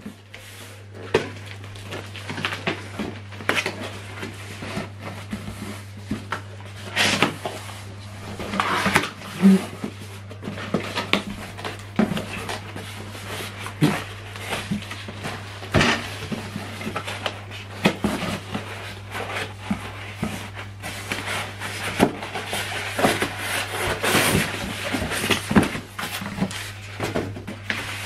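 Cardboard box and polystyrene foam packing being handled: irregular knocks, scrapes and rustles as the box flaps are opened and the foam inserts are lifted out, over a steady low hum.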